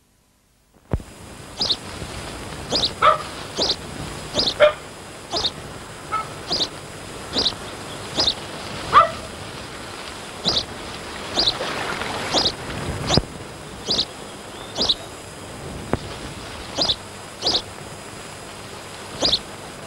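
Dog yapping over and over: short, sharp, high barks about once a second, over a steady hiss.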